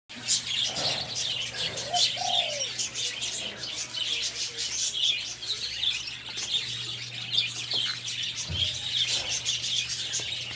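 Many small birds chirping rapidly and without pause, with a couple of lower, dove-like calls about one to two seconds in.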